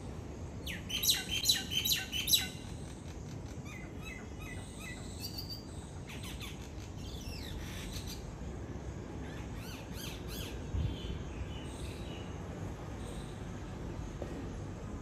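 Common myna calling: a loud burst of rapid, clicking calls about a second in, then a run of short repeated notes and fainter whistled and chattering calls, dying away before the end.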